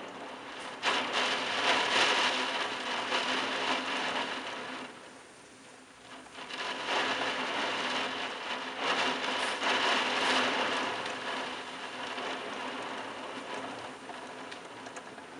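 Heavy downpour of rain on tiled rooftops. It surges suddenly about a second in, eases briefly in the middle, swells again, then slackens toward the end.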